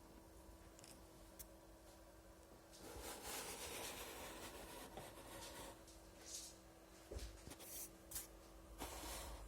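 Faint rubbing and scraping of something being handled, starting about three seconds in, with a few light clicks later on; a faint steady hum underneath.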